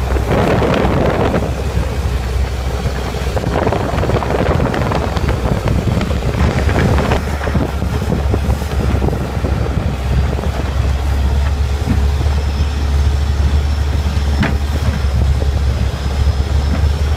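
Long-tail boat engine running steadily under way, a loud, even low drone, with wind gusting on the microphone now and then.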